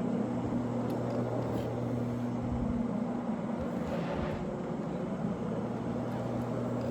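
Electric carpet-cleaning floor machine with a hog's-hair fiber pad running steadily as it scrubs the carpet: an even motor hum over a constant whoosh.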